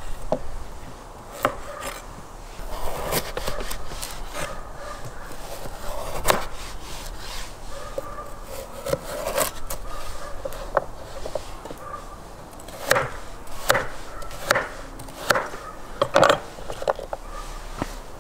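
Kitchen knife cutting carrots on a wooden cutting board: irregular knocks of the blade striking the board, loudest in a run of knocks about two-thirds of the way through.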